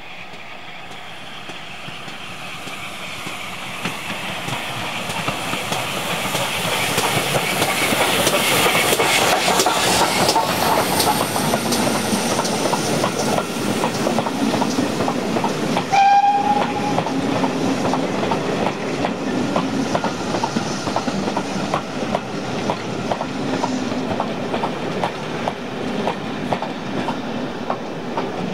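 A steam-hauled passenger train passing close by. The locomotive's sound builds as it approaches and is loudest as the engine goes past, then the coaches roll by with a steady clickety-clack of wheels over the rail joints. A brief high-pitched tone sounds about halfway through.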